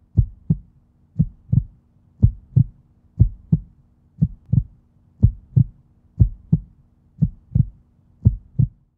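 Heartbeat sound effect: paired low thumps in a lub-dub rhythm, one double beat about every second, over a faint steady low hum.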